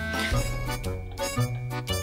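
Background music: a light, bouncy instrumental with a steady bass line and a reedy, harmonica-like melody.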